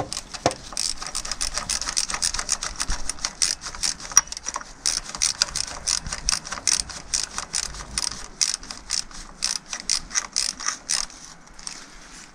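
Ratchet wrench clicking in quick runs as bolts are turned during reassembly of the motorcycle, pausing briefly near the end.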